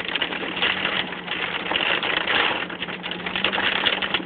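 Heavy rain hitting the roof and windshield of a moving car, heard inside the cabin as a dense, irregular pattering over a steady low hum.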